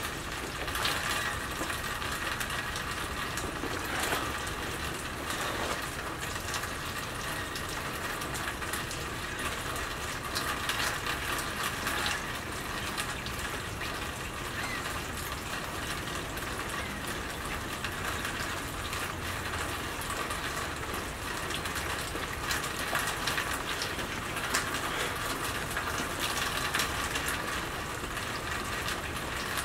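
Steady rain falling on wet pavement and patio, an even hiss with scattered sharp drips.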